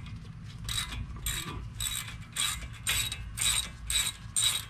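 Hand ratchet with an 18 mm deep socket clicking in short runs, about two a second, as it is swung back and forth to loosen the outer tie rod nut on the steering knuckle.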